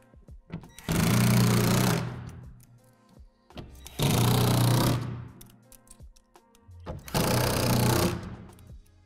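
A cordless drill driving screws into the plastic wall panels of a shed. It runs in three bursts of about a second each, about three seconds apart.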